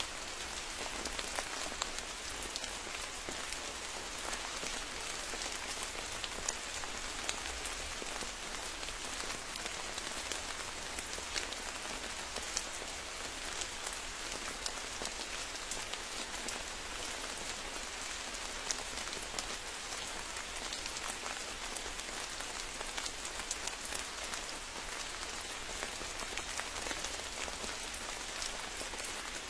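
Steady rain, an even hiss with many individual drops striking close by.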